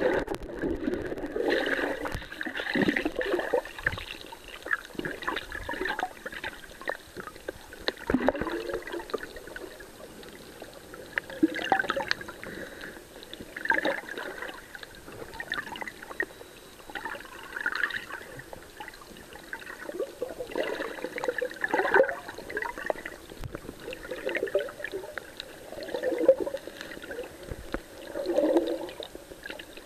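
Water sloshing and gurgling around a camera held underwater while swimming, sounding muffled, with irregular surges every few seconds.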